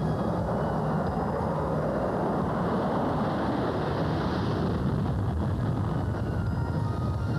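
SR-71 Blackbird's afterburning jet engines: a steady low rumble with a hissing swell that peaks about four seconds in as the aircraft passes, then eases.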